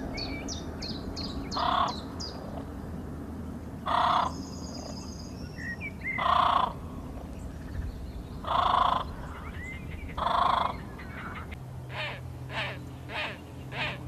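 Birds calling: a quick run of high, falling chirps, about five a second, then five loud calls spaced about two seconds apart. Near the end comes a faster run of shorter, quieter calls, about three a second.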